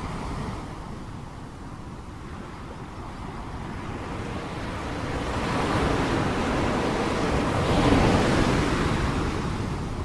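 Sea waves surging in: one wave builds over several seconds, breaks about eight seconds in, then washes back.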